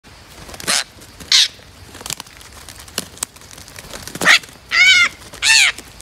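Parrots at their tree-hollow nest giving loud, harsh screeching calls: a few short raspy squawks in the first part, then arched, ringing screeches about half a second apart near the end.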